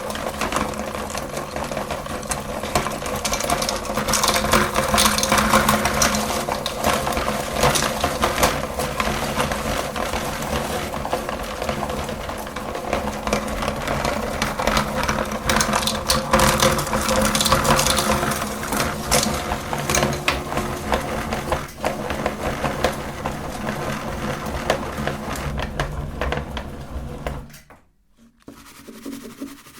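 Electric meat grinder running, its motor humming steadily while the auger grinds candy with a dense crackling, grinding noise. The motor cuts off near the end.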